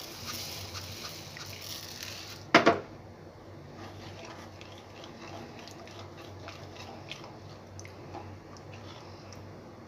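Granulated sugar pouring from a bowl into simmering milk in a steel kadhai, a soft hiss, then a brief loud knock about two and a half seconds in. After it, a wooden spatula stirs and scrapes faintly in the thickening milk.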